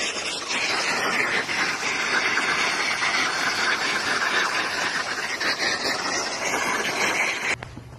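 Steady, heavy rush of water pouring from rooftop drainpipes and splashing down onto the street below, cutting off suddenly near the end.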